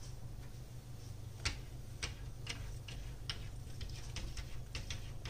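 A cat's paws tapping a hard floor in quick light clicks as it paws up and down, begging for food. The clicks start about a second and a half in, spaced about half a second apart, and come faster near the end. A steady low hum runs underneath.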